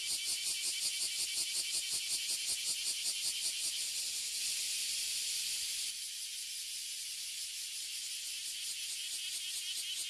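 Chorus of bear cicadas (kuma-zemi) and large brown cicadas (abura-zemi) singing, high-pitched and loud. A rapid pulsing buzz of about six pulses a second, typical of the bear cicada, smooths into a steady sizzling hiss, typical of the large brown cicada, about four seconds in. The pulsing comes back near the end.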